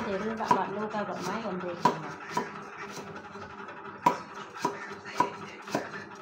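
A cleaver slicing a stalk into rings on a thick round wooden chopping board: steady knocks of the blade on the wood, roughly two a second.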